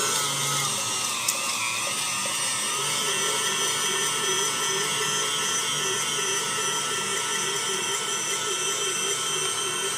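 Electric meat grinder motor running steadily as it grinds chunks of beef: a high, drill-like whine whose pitch wavers slightly with the load. A short click about a second in.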